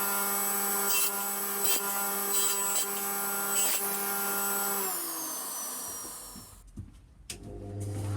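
Electric woodworking power tool running steadily with a few knocks. It is switched off about five seconds in and its pitch falls as it winds down, then it is switched on again near the end and its pitch rises as it spins up.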